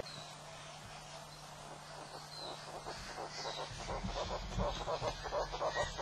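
A bird calling in a rapid series of short, repeated notes that grows louder from about halfway through.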